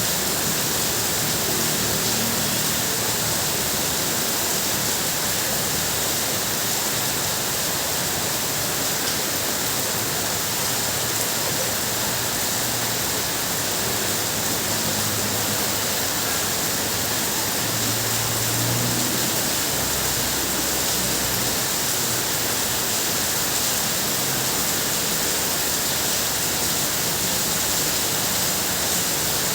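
Heavy rain drumming steadily on a tin roof, a dense, even hiss, with a faint low rumble about two-thirds of the way through.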